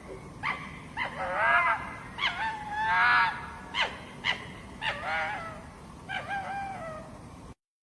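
Hoary fox (Lycalopex vetulus) calling: a series of about seven sharp yelps, several of them drawn out into wavering, whining cries.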